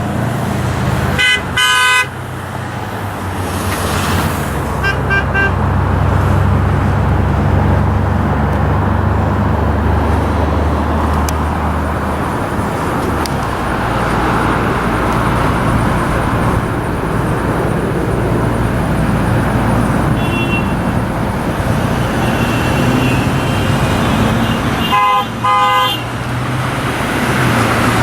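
Steady freeway traffic noise with car horns honking: a loud short honk near the start, fainter honks around the middle, and another loud honk a few seconds before the end. The drivers are honking in answer to protesters' 'honk' signs.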